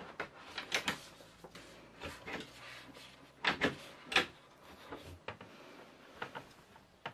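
Galley appliance and cupboard door being handled, making a series of sharp clicks and knocks as it is opened and shut; the loudest knocks come about three and a half to four seconds in.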